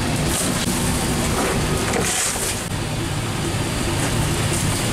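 A boat's engine drone running steadily, with wet slaps and rustles of whole fish being thrown onto a pile on deck, most clearly about half a second in and again about two seconds in.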